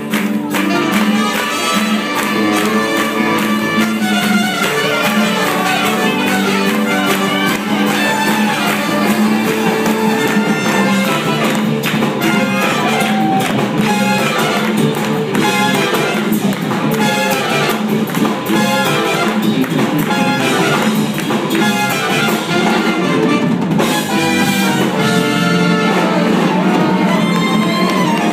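Live jazz-fusion band playing: saxophone and trumpets over electric guitars, bass, keyboards, drums and percussion, loud and continuous.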